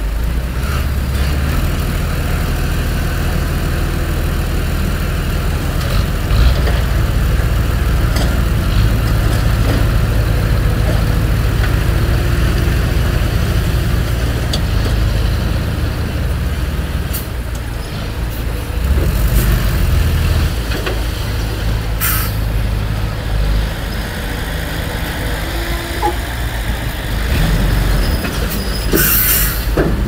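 Diesel engines of heavy earthmoving machines, a Komatsu D20P-6 bulldozer and a dump truck, running steadily with a deep drone that swells and eases as they work. Two short sharp hisses cut in during the second half, the later one near the end.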